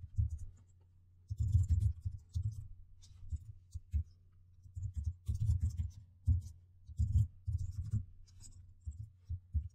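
Typing on a computer keyboard: irregular runs of dull key strikes with short pauses between them.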